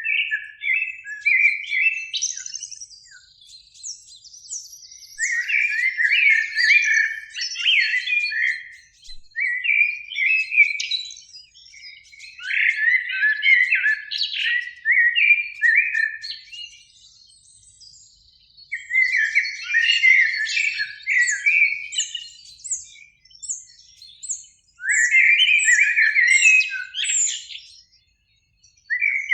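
Common blackbirds singing: a run of warbled song phrases a few seconds long, separated by short pauses, with lower fluty notes mixed with higher twittering.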